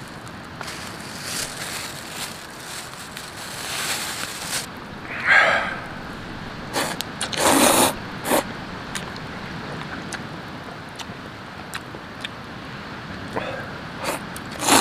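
Wood fire crackling in a fire pit, with a few louder short eating sounds near the middle from a metal pot worked with chopsticks.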